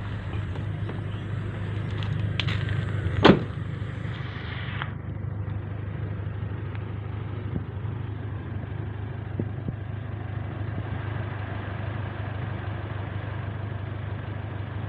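Petrol Toyota Innova engine idling steadily and smoothly, running on engine oil mixed with cooking oil. A single sharp click sounds about three seconds in.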